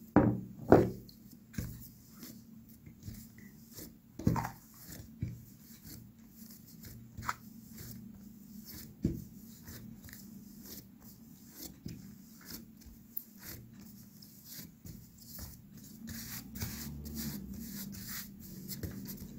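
Risen yeast dough being kneaded by hand on a silicone pastry mat to knock it back: irregular dull slaps and squelches as it is pressed and folded, the loudest in the first second.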